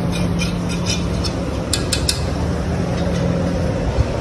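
Steady low workshop hum, with a few quick metallic clinks of hand tools against the motorcycle engine about two seconds in.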